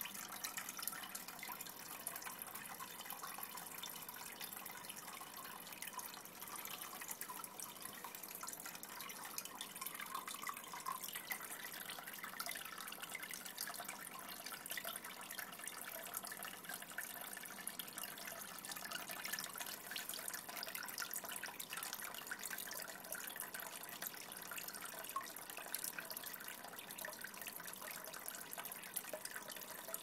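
Pet water fountain running: a steady trickle of flowing water with many small drips and splashes.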